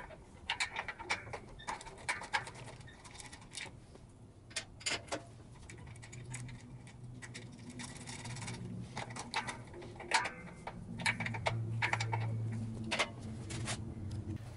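Socket ratchet wrench clicking in quick bursts as the bow attachment bolts of a combination bandsaw are turned, with small metal clinks of the hardware. A low hum comes in underneath in the second half.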